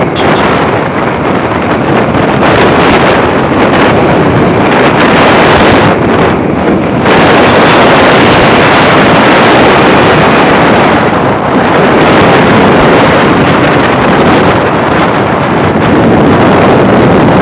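Wind rushing over the microphone of a moving motorbike: a loud, continuous rush that thins briefly in its higher part about six seconds in.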